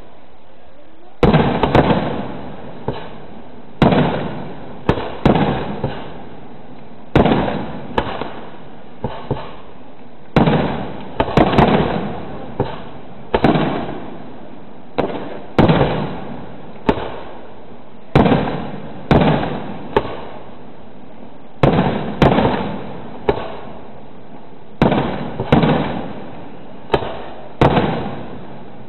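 Aerial fireworks display: a long run of sharp shell bursts, one every second or two, each trailing off in a rumbling echo.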